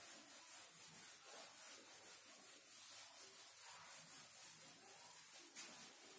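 Faint rubbing of a duster wiping marker off a whiteboard in quick back-and-forth strokes, with a light tap near the end.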